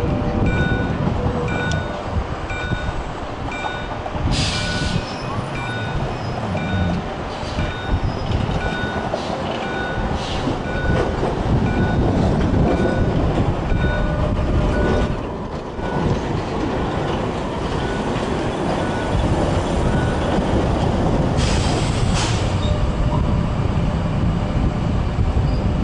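Gothenburg street trams running past on the rails with a steady rumble. A repeating beep sounds in the background through about the first sixteen seconds, and brief hissing bursts come about four seconds in and again about twenty-one seconds in.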